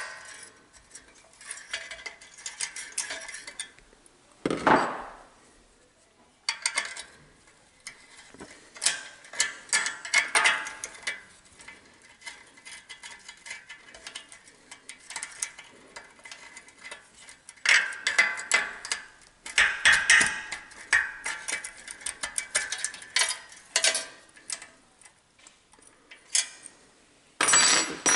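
Hand tools and small metal engine parts clicking and clinking in irregular clusters as the governor springs and linkage are taken off a small single-cylinder engine, with one louder clunk about four and a half seconds in.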